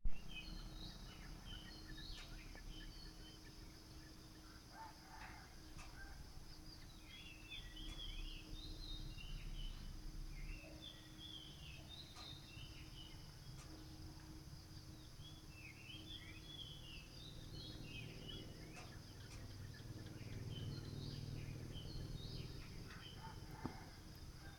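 Birds chirping in scattered clusters of short calls, over a steady high insect drone and a faint low rumble.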